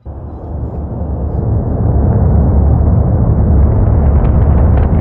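Rocket launch noise arriving from miles away: a loud, deep rumble that comes in suddenly and swells over about two seconds, with crackling setting in near the end.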